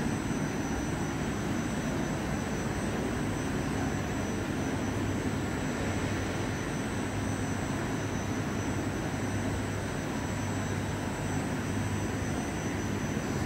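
Gas-fired thermal oil heater running with its burner lit, making a steady roar with a faint high-pitched whine over it.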